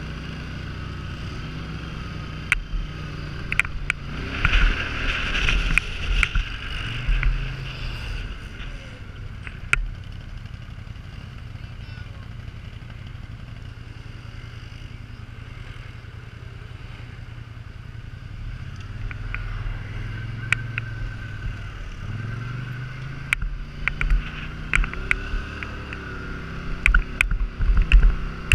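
Polaris Sportsman 850 ATV's parallel-twin engine running at low speed, revving up a couple of times, with scattered sharp clicks and rattles from gravel and the machine.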